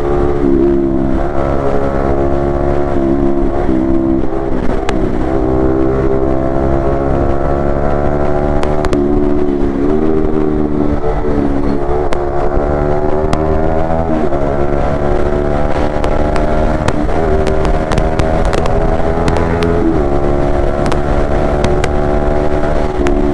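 Yamaha MT-15 V2's single-cylinder engine through an Akrapovic exhaust, pulling up through the revs and dropping back several times as the gears are shifted while riding.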